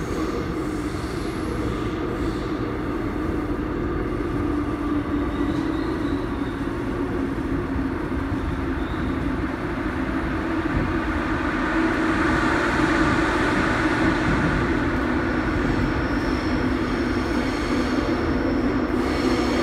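Seoul Subway Line 5 train running, heard from inside the passenger car as it pulls away from the station: a steady rumble of wheels and traction motors that grows louder about halfway through, with a thin high whine entering near the end.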